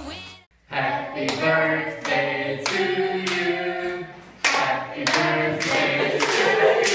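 The backing song cuts off about half a second in. Then a small group of people sing together and clap their hands in time, in a small room.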